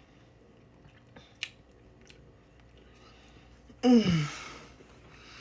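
Faint chewing of crunchy cereal with a few small mouth clicks, then a loud, satisfied "mmm" that falls in pitch near the end.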